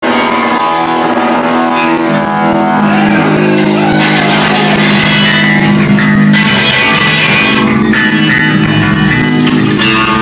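A rock band playing, led by guitar chords over bass.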